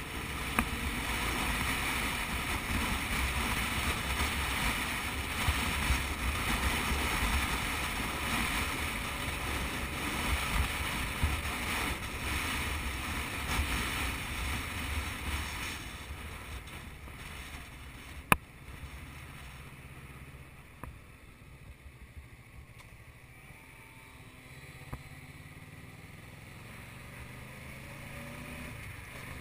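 Motorcycle riding with wind rushing over the microphone and the engine running underneath. The rush is loud for about the first half, then drops away as the bike slows, leaving a quieter low engine hum, with a single sharp click about two thirds of the way through.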